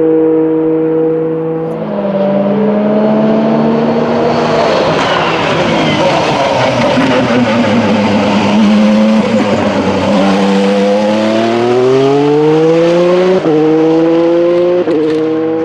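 Formula 2 race car engine running at speed on the track: it swells and its note falls as the car goes past, then climbs steadily in pitch under acceleration, broken by two quick upshifts near the end.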